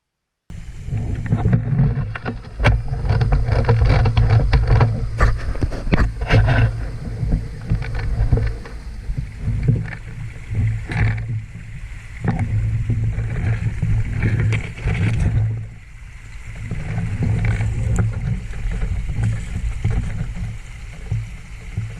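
Loud low rumble on a head-mounted action camera's microphone, with many short knocks and clicks scattered through it, most dense in the first several seconds; it sounds like wind and handling noise.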